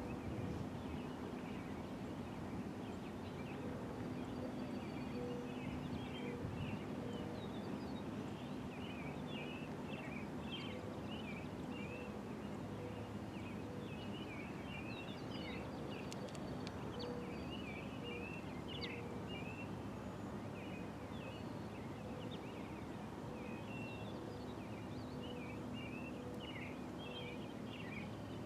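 Small birds chirping and twittering throughout, over faint background noise and a steady low hum; a deeper hum joins about halfway through.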